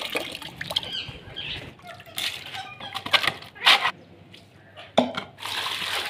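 Tap water splashing and bubbling into a steel bucket, with a few sharp knocks. Near the end, water is poured from the bucket into a plastic bowl.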